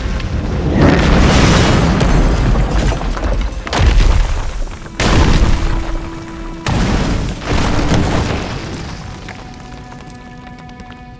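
Action-film soundtrack: several heavy, sudden booms of explosion effects over a dramatic music score, which thins to held tones and fades out near the end.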